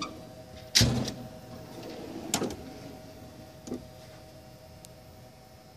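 Steel drawers of a Snap-on KRL1003 roll-cab toolbox being slid shut and pulled open. There is a loud bang about a second in, a sharper clack around two and a half seconds, and a lighter knock near four seconds.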